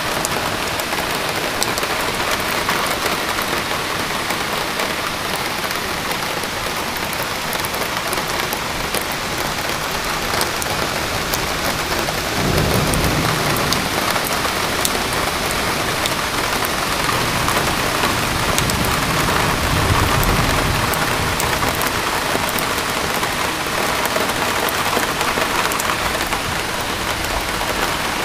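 Heavy rain falling steadily, with scattered sharp ticks of nearby drops. A low rumble comes in about halfway through and again a few seconds later.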